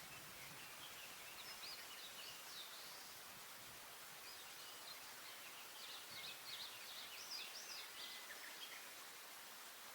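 Eastern crowned warbler singing: two high, rapid phrases of quickly rising and falling notes, one about a second and a half in and a longer one from about four seconds in, over a faint steady hiss.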